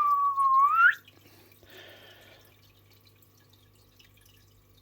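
A person whistling a short tune. The last note is held, dips a little, then sweeps up sharply and stops about a second in. A brief faint rustle follows.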